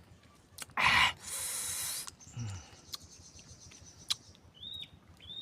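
Eating sounds while feeding on nipah clams: a short, loud noisy burst of mouth and shell noise about a second in, a softer hiss after it, and scattered small clicks. A brief hummed 'mm' comes midway, and two short high chirps come near the end.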